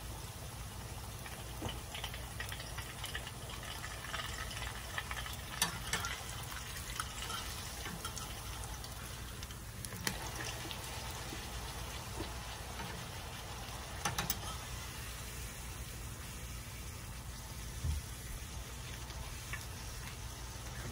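Corn tortilla frying in shallow oil in a nonstick skillet, a steady sizzle, with several sharp clicks of a metal spatula against the pan as the tortilla is turned and folded into a taco shell.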